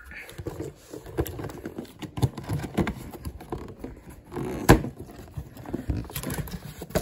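A large cardboard box being handled and opened by hand: irregular rubbing and scraping of hands over the cardboard and packing tape, with scattered taps and one sharp knock about two-thirds of the way in.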